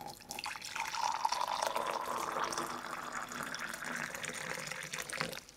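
Water being poured into a ceramic mug, a steady splashing pour whose pitch rises as the mug fills, stopping abruptly near the end.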